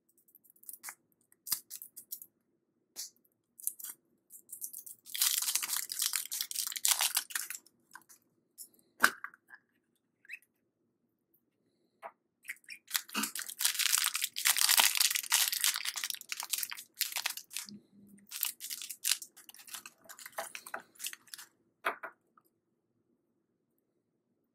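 Candy surprise-egg packaging being torn open and crinkled by hand, in two long rustling spells with scattered clicks and crackles between them, over a faint steady hum.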